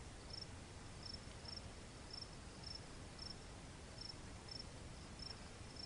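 Insect chirping faintly in a steady rhythm, about two short, high chirps a second, over a low background hiss.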